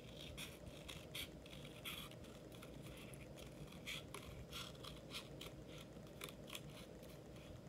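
Scissors snipping through cardstock: a steady run of short, faint cuts, a few every second.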